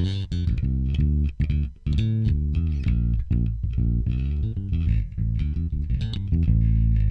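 Dingwall electric bass, all three pickups on, recorded through a rack chain of an ART Pro Channel II tube channel strip and a SansAmp, playing a busy run of plucked notes with a few sliding notes in the middle.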